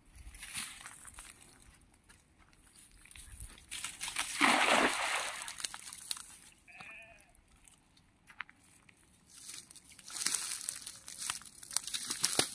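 A cast net lands on pond water with one loud splash about four and a half seconds in. A short, high call sounds a couple of seconds later, and near the end there is rustling as the wet net is hauled back in.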